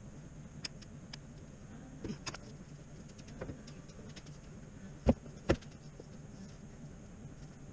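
Scattered light clicks and clinks, then two sharp knocks about half a second apart, over a faint low hum: tools and parts being handled during work under a car.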